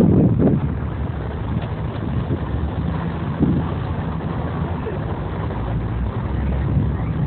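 Wind buffeting the microphone in gusts over a steady low outdoor rumble, strongest right at the start and again about three and a half seconds in.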